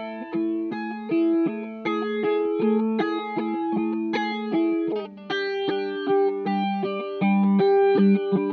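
Electric guitar, a Gibson Firebird VII, played through a Subdecay Starlight Flanger V2 pedal into an Orange AD30 tube amp, picking a melodic line of single notes and double stops with a flanger sweep. About five seconds in it moves to a lower riff.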